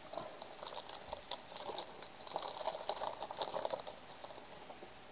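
Plastic wrapper of a 2010 Topps Magic football card pack crinkling and crackling as it is torn open and the cards are pulled out, busiest from about two to four seconds in.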